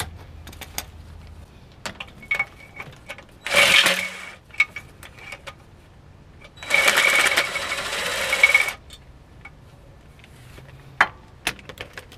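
DeWalt cordless impact tool hammering on torque converter bolts as they are loosened for removal: a short burst about three and a half seconds in, then a longer burst of about two seconds. Light metallic clicks of tools come between the bursts.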